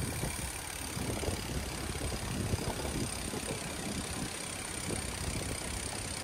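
Steady outdoor city background hum with the low rumble of distant traffic, and a faint thin high tone held throughout.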